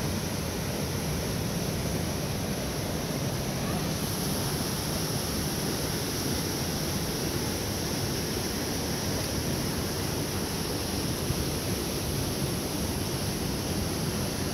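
Steady rushing of a waterfall pouring into a river pool.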